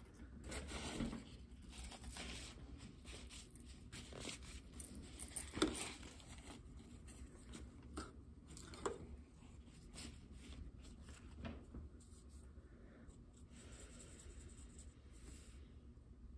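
Paintbrush bristles stroking and dabbing acrylic paint on paper: faint, scratchy strokes with a few soft taps, the sharpest about five and a half seconds in.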